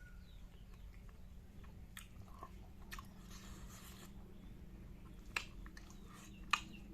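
Close-up chewing sounds of a person eating a kidney-bean and perilla-seed dish, with a few sharp mouth clicks, the loudest near the end.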